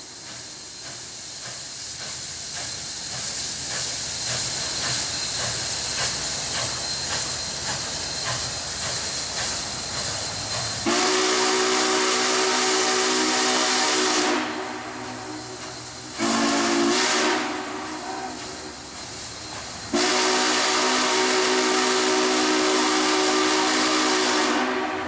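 Union Pacific 844, a 4-8-4 steam locomotive, approaching with hissing steam and rapid chuffing that grows louder. About 11 seconds in, its chime steam whistle sounds three blasts, long, short and long: the end of a grade-crossing signal.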